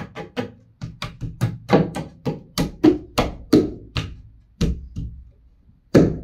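Wooden shelf knocked repeatedly by hand to drive it onto its hidden metal mounting rods. The knocks come in a quick, uneven run of about three a second, then pause before one last, loudest knock near the end.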